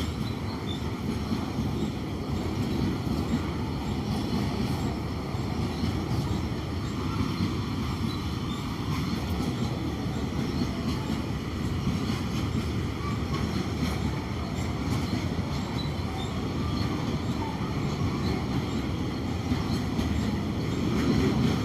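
Train hauled by a WDG4 diesel locomotive running steadily, a continuous low rumble that grows a little louder near the end.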